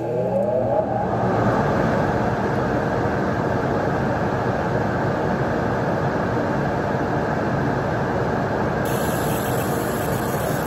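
Laser engraver's extraction fan spinning up with a rising whine in the first second, then running steadily with a loud rush. About nine seconds in, a high hiss joins as the laser starts marking the anodized aluminium.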